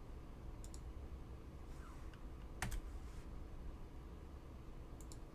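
A few light clicks and taps, with one sharper click about two and a half seconds in, over a low steady hum.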